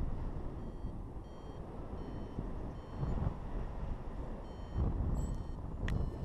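Paragliding variometer beeping in short high tones, about one to two a second with a pause midway, signalling that the glider is climbing in rising air. Under it runs a heavy low rush of flight wind on the microphone.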